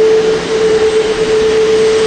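Boeing 777-200ER's Rolls-Royce Trent 892 turbofans at taxi power: a loud, steady jet whine, one held tone over a broad rush of engine noise.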